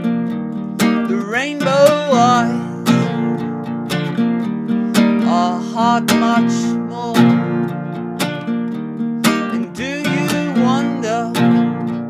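Classical-style acoustic guitar strummed in a steady rhythm of chords, with a wordless vocal line rising and falling over it in a few places.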